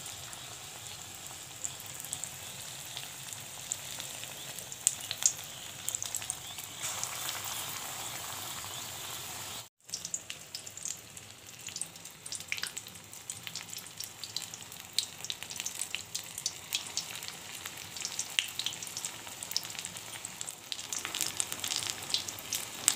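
Besan-battered stuffed tomatoes deep-frying in hot oil in a karahi: a steady sizzle with scattered crackles and pops. The sound breaks off for an instant about ten seconds in.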